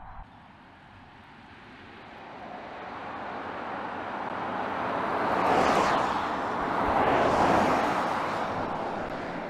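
Two BMW iX electric SUVs driving past one after the other: tyre noise on asphalt swells to two peaks about two seconds apart, then fades, with no engine note.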